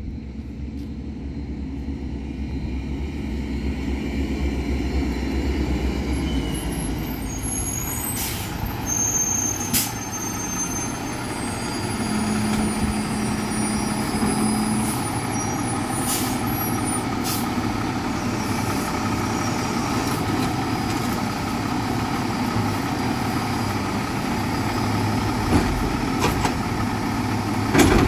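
Automated side-loader garbage truck pulling up with its diesel engine running and getting louder, air brakes hissing several times as it stops. Near the end come loud knocks as its hydraulic arm grabs and lifts a wheeled trash bin.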